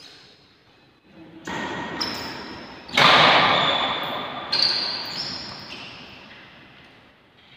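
Badminton racket strikes on a shuttlecock during a rally, about five sharp hits, each ringing on in a large echoing hall; the loudest comes about three seconds in.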